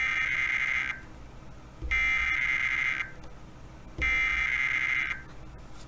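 Emergency Alert System SAME header: three harsh, buzzy digital data bursts, each about a second long and a second apart. They encode the alert, here a Required Weekly Test.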